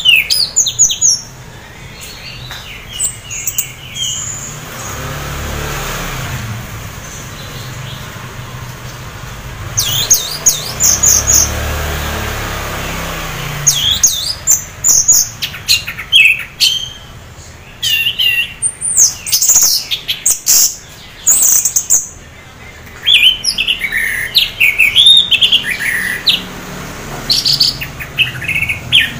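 Orange-headed thrush singing in bursts of quick, varied whistles and chirps separated by short pauses. This is the song of a bird the keeper calls half in breeding condition, used to prompt other orange-headed thrushes to sing. A low rumble runs underneath for several seconds in the middle.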